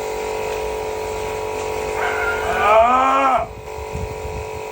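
A steady mechanical hum from a running motor. From about two seconds in, a long pitched call rises and then falls, ending before three and a half seconds.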